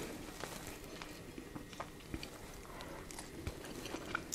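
Faint chewing of cooked shrimp, with small scattered clicks and crackles as a shrimp's shell is peeled off by hand.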